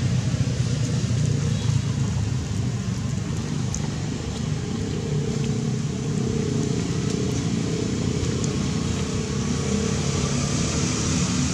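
Steady low hum of an engine running, like a vehicle idling nearby.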